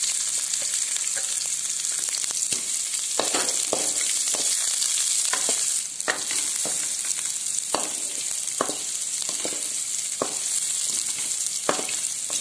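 Chopped onions sizzling steadily in hot oil in a kadai, with a spatula scraping and stirring them around the pan at irregular strokes, as the onions are sautéed.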